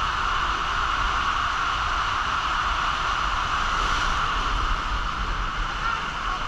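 Steady rushing of water under a raft tube sliding down a water-coaster flume, heard up close from the rider.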